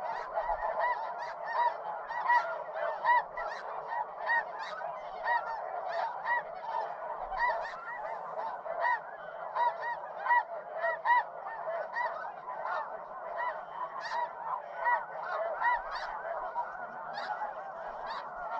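A flock of snow geese calling: many overlapping honks in a continuous chorus, without a break.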